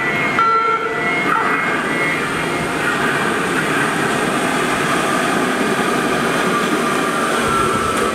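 Budd-built Baltimore Metro subway train running into an underground station: a steady rumble of wheels on rail, with faint broken high tones in the first second and a faint high whine sliding slightly lower near the end as it slows.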